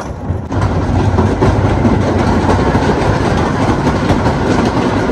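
Wooden roller coaster train rumbling and clattering along its wooden track at speed, a loud, steady rattle with a dense run of clicks.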